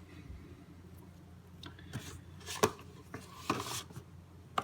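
A trading-card pack wrapper and its cards being handled and torn open by hand: a few short, sharp crinkles and taps about two seconds in and again near the end.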